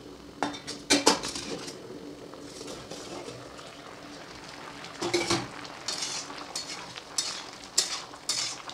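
A steel lid clinks against an aluminium kadai as it is taken off, with a few sharp metal clinks about a second in. A spatula then scrapes and stirs the shukto vegetables in the pan, in a run of scrapes in the second half.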